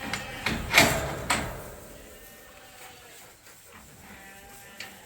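Sheep bleating, with several sharp knocks in the first second and a half, the loudest just under a second in.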